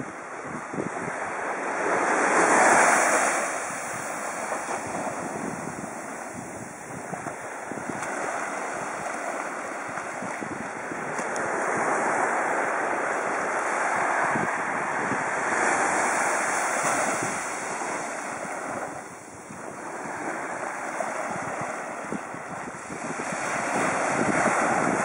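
Small surf waves breaking and washing up a sandy beach, the sound swelling and easing every few seconds and loudest about three seconds in, with wind on the microphone.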